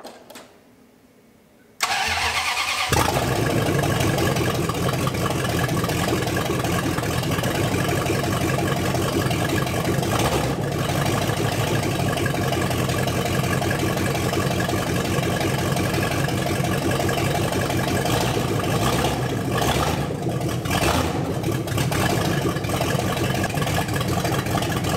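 The Dodge police car's newly assembled engine cranks on the starter and catches about two seconds in, then runs steadily, with a few small dips in level late on.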